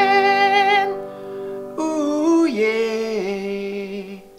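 Closing theme jingle: a voice sings a long held note with vibrato, then after a short break a second phrase that steps down in pitch, over sustained instrumental notes, fading out near the end.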